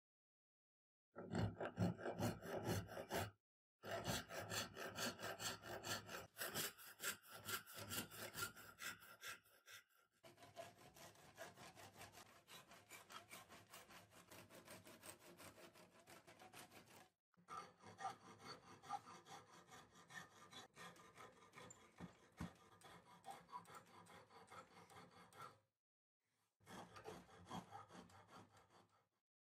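Hand saw cutting through a wooden block held in a vise, in quick, steady back-and-forth strokes, stopping briefly a few times.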